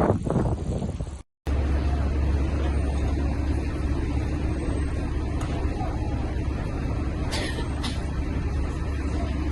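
Vehicle engine running with a steady low rumble, a short hiss breaking in a little after the middle. The sound cuts out completely for a moment about a second in.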